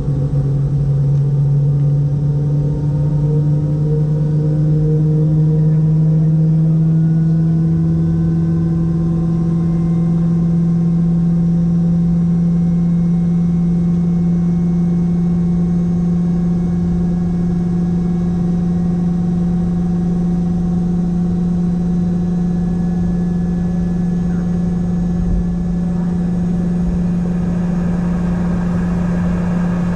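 Boeing 717-200's rear-mounted Rolls-Royce BR715 turbofan engines heard from inside the passenger cabin: a loud, steady drone with a tone that slowly rises over the first several seconds and then holds.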